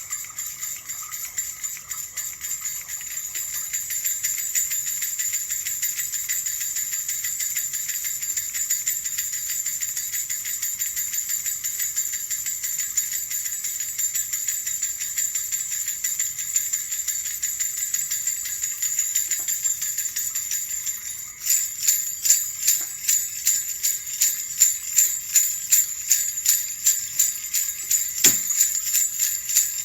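Small bells jingling continuously as they are shaken. About two-thirds of the way through, the shaking becomes a louder, regular beat of roughly two to three shakes a second.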